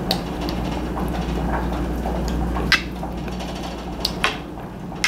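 Fork and knife clinking against a dinner plate a few times while cutting food, the sharpest clink a little under three seconds in, over a steady low hum.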